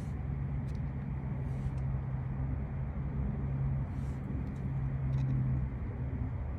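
An engine idling steadily, a low even hum with a few faint light clicks.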